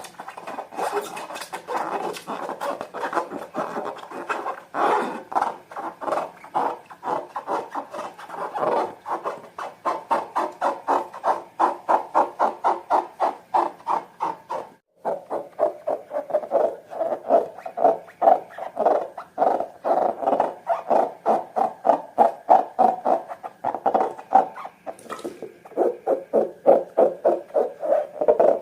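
Slime being kneaded and squeezed by hand, a rapid rhythmic squelching and crackling of about three to four squishes a second. It breaks off briefly about halfway, then carries on.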